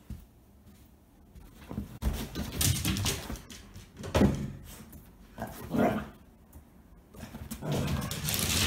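Two Golden Retriever–English Cocker Spaniel mix dogs play-wrestling on a leather sofa: scuffling and rubbing against the leather, with a few short dog vocalizations, the loudest about four seconds in. More scuffling comes near the end.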